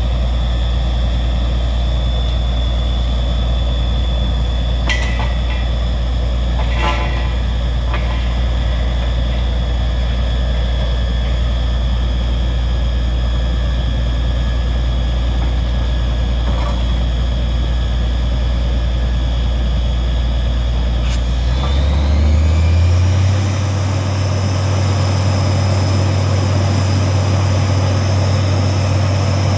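Truck-mounted borewell drilling rig running under load, a deep steady drone with a high whine over it, and a couple of metallic knocks about five and seven seconds in. About twenty-two seconds in the engine speeds up, its drone and whine rising in pitch and then holding at the higher speed.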